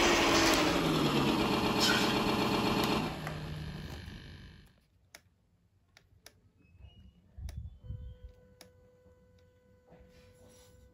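Simulated truck engine sound played through a small speaker on an RC truck's Arduino/ESP32 sound controller: it slows down, settles, then fades out and stops at about four and a half seconds, as the engine is shut off. Then near silence with a few faint clicks.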